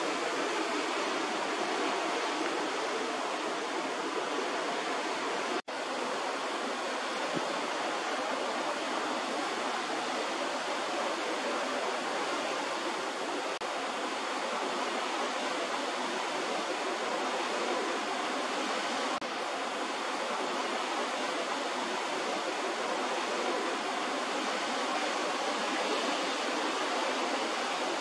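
Steady rush of sea water along the hull of a cruise ship under way, an even hiss-like wash with a momentary dropout about six seconds in.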